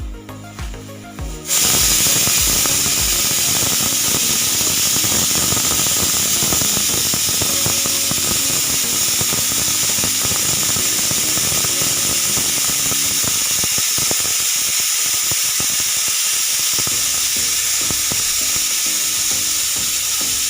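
Pressure cooker whistle blowing as the cooker vents steam at full pressure: a loud, steady hiss with a whistling tone in it. It starts abruptly about a second and a half in and holds at an even level.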